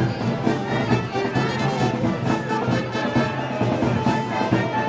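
Festival brass band playing live, with brass and drums over a steady beat.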